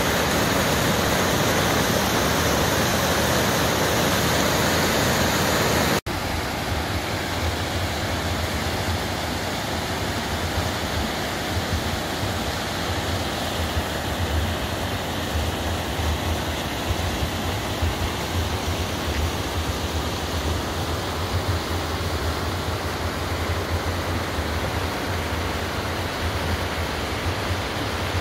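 Steady rush of a mountain stream's small waterfalls cascading over granite boulders. About six seconds in it cuts off abruptly and resumes as a quieter rush with a fluctuating low rumble underneath.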